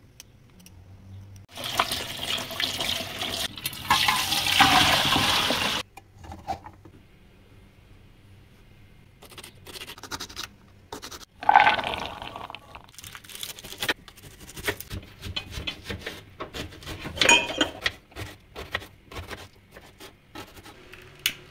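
Water running for about four seconds, then a knife cutting green beans and onion on a cutting board: a long irregular series of short taps and clicks.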